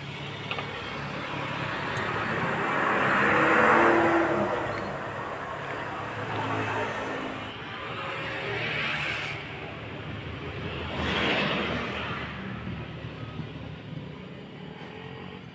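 Motor vehicles passing by: engine and road noise swells and fades several times. It is loudest about four seconds in, with smaller passes near the middle and end.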